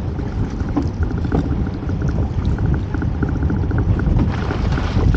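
A fishing reel clicking rapidly in short runs as a bass is played on a bent lure rod, over a steady low rumble of wind on the microphone.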